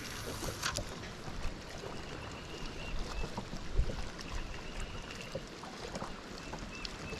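Water lapping against the hull of a small fishing boat, with light wind and the faint whirr and clicks of a spinning reel being cranked in.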